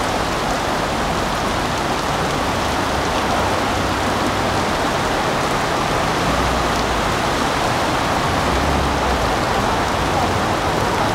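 Heavy rain pouring steadily onto a flooded street, with cars driving through the standing water.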